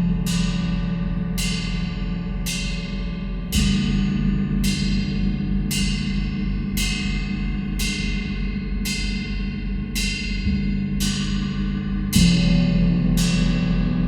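Gong-session music: a steady pulse of bright metallic strikes, a little under two a second, each ringing out briefly. Under them a low gong hum sustains, swelling with fresh strokes a few seconds in and again near the end.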